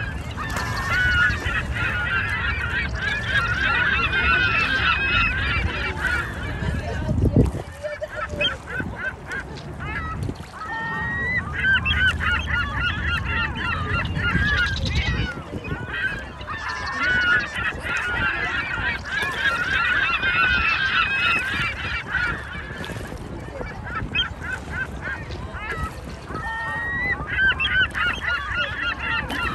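A flock of mallard ducks calling excitedly, many overlapping calls with short lulls, while the drakes scuffle on the water. Wind rumbles on the microphone in stretches, and there is one sharp knock about seven seconds in.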